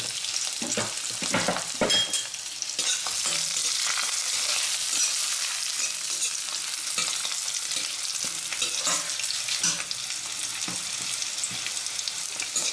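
Crushed garlic, ginger, green chillies and bay leaf sizzling in hot butter and oil in a stainless-steel kadai. A slotted spatula scrapes against the pan as it stirs, with the sharpest scrapes in the first two seconds.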